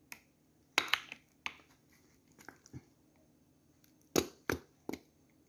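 Plastic squeeze bottle of Heinz Hot & Spicy Aioli being squeezed over a shawarma wrap, giving a series of short, sharp spurts and clicks, several about a second in and three more close together near the end.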